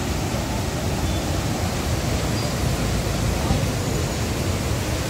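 Steady rushing of the Alaknanda river in flood: a fast, swollen, muddy torrent running high.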